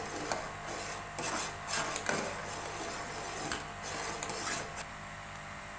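Metal spoon stirring custard in a steel pot, scraping the sides and bottom in a run of irregular scrapes and light knocks. The stirring eases off near the end, leaving a steady low hum.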